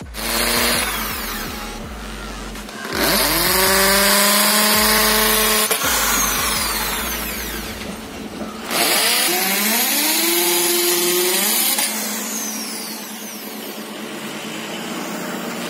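Corded electric drill boring into a car's plastic front bumper, run twice for about three seconds each, its motor whine rising as it spins up and then holding steady.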